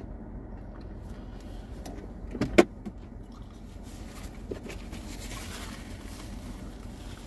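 Steady hum of a car's air conditioning running inside the closed cabin, with a single sharp knock about two and a half seconds in.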